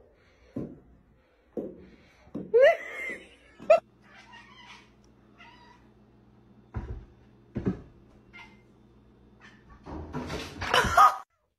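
Domestic cat meowing, a few short cries that glide up and down, with soft thumps between them. Near the end comes a louder, longer cat cry mixed with noise.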